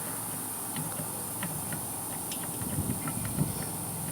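Air hissing steadily out of the Schrader air valve of a well pressure tank as its air charge is bled off, with faint scattered ticks. The tank holds only a little air, a low charge that the owner puts down to a busted bladder with water in the air side.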